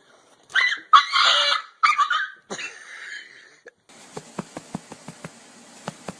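A dog vocalizing in three or four loud, whiny bursts that fade away. It is followed by faint, irregular clicks.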